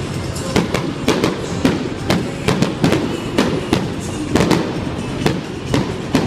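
Fireworks going off in a rapid, irregular run of sharp bangs, two or three a second, over a continuous din.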